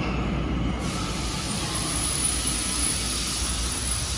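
Tokyo Metro Ginza Line train pulling into an underground station platform: a steady rumble of wheels and motors, with a hiss coming in about a second in and a faint high whine over it.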